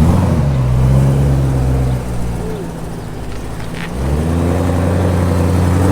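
A car engine running with a steady note. It eases off about 2 seconds in, then picks up again about 4 seconds in, rising in pitch and holding there.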